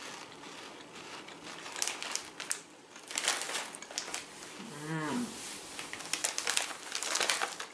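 Crunching as a person chews a Combos buffalo blue cheese stuffed baked pretzel, irregular crackly bites throughout, with a short rising-and-falling "mmm" hum a little past halfway.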